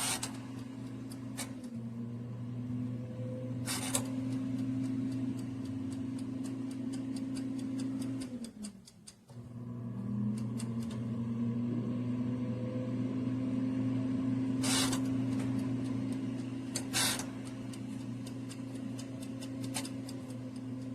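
Air-fryer convection fan of a countertop Wonder Oven running with a steady hum while air frying. It cuts out briefly about nine seconds in and spins back up, and a few sharp clicks sound over it.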